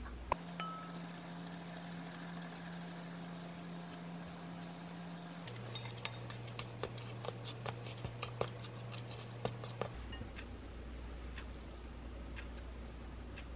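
Quiet kitchen sounds of dry flour and cocoa being sifted through a metal mesh sieve into a glass mixing bowl, then stirred with a spatula. Scattered light ticks come from the utensils against the bowl, and they come quickest in the middle stretch while the powder is stirred.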